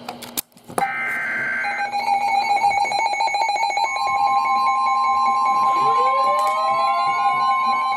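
Emergency Alert System alert tones ahead of a severe thunderstorm warning. A brief warbling data burst comes about a second in, then a steady, high attention tone, and a second tone joins it at about four seconds to make the two-tone alarm. Near six seconds a rising glide sweeps up and levels off beneath the tones.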